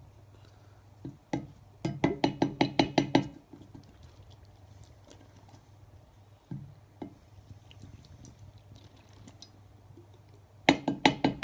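A plastic snuffer bottle knocked rapidly against a ceramic plate as gold flakes are emptied out of it. There are two quick runs of about ten knocks each, one about two seconds in and one near the end, with a few single knocks between.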